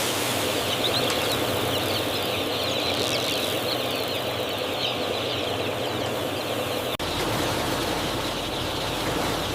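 A dense chorus of many chicks peeping over a steady mechanical hum, as in a poultry house. The sound drops out for an instant about seven seconds in.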